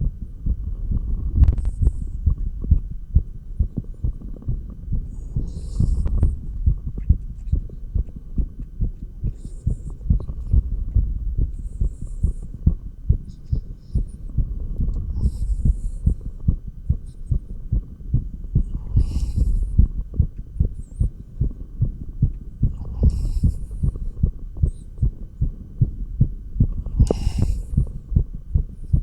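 A human heartbeat heard through a stethoscope: quick, regular low beats, raised by dumbbell exercise. Brief scratchy rustles come through every few seconds.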